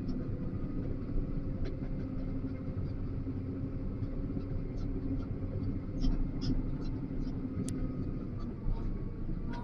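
XCMG LW500HV wheel loader's diesel engine running steadily, heard from inside the operator's cab, with scattered light clicks and rattles.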